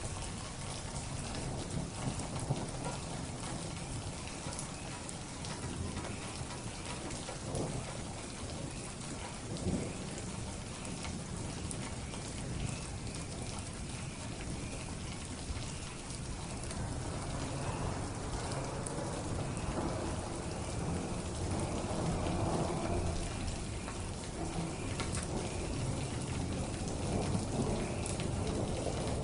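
Steady heavy rain falling, with a low rumble of thunder swelling up about halfway through and growing louder toward the end.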